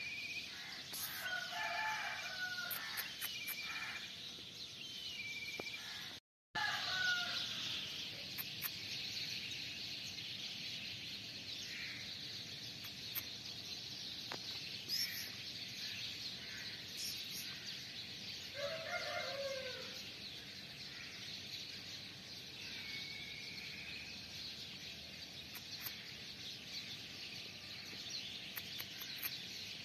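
Scattered bird calls, including one longer rising-and-falling call about two-thirds of the way through, over a steady high outdoor hiss. The sound drops out completely for a moment about six seconds in.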